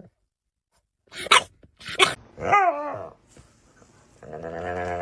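A dog barks sharply twice, gives a short wavering cry, then starts a long, steady, low growl about four seconds in.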